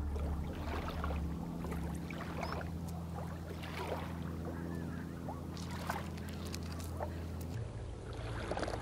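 Small waves lapping on a pebble shore, with scattered clicks of stones shifting, over a low steady hum.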